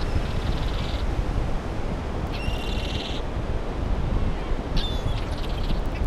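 Seagulls calling three times, a couple of seconds apart, each a short rasping call, over a steady rush of wind on the microphone and surf.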